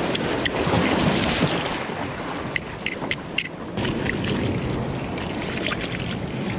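Seawater surging and swishing through a rocky tidepool, loudest about a second in, with many small sharp clicks and pops scattered through it and wind buffeting the microphone.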